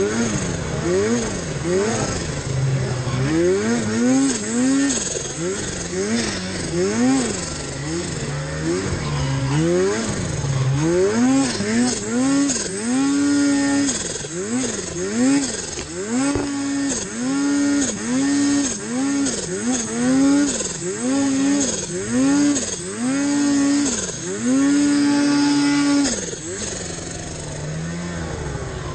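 Snowmobile engine revving up and down over and over as the throttle is worked in deep powder, about one rise and fall a second, with the revs held high for a second or two at a time through the middle stretch and easing to a lower, quieter run near the end.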